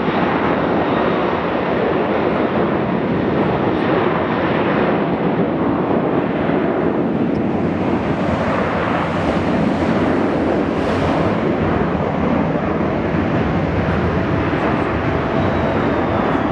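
Boeing 737-800's CFM56-7B turbofan engines running loud and steady as the airliner rolls along the runway.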